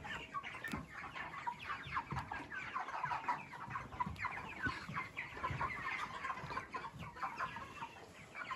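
A large flock of broiler chickens, about 37 days old, clucking and peeping together: many short calls, often falling in pitch, overlapping without a break.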